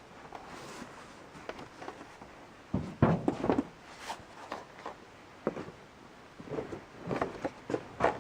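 Irregular knocks, clicks and clatter of hardware and boxes being handled while searching for bolts, loudest in a quick run of knocks a few seconds in.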